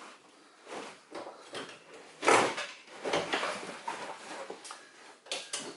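Irregular scraping and rustling strokes as old carpet and sound deadening are handled and pulled up from the car's floor, the loudest stroke a little past two seconds in.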